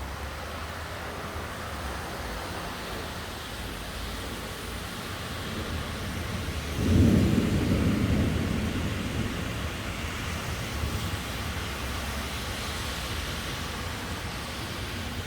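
Steady heavy rain with wind during a thunderstorm; about seven seconds in, a loud clap of thunder breaks in and rumbles away over a few seconds.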